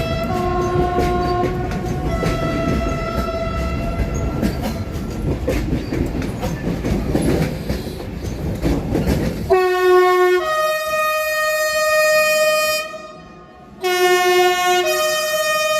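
Train horn sounding in two tones as a train runs in over the rails with a steady wheel-and-track rumble. About ten seconds in the rumble stops abruptly. The horn then blows two long, loud two-note blasts, a lower note followed by a higher one, with a short gap between them.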